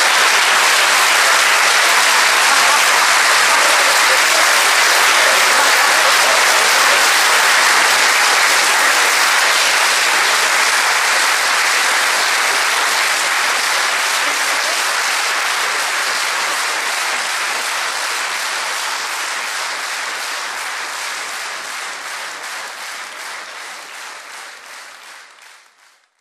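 Audience applauding steadily after a joke's punchline, dying away gradually over the second half.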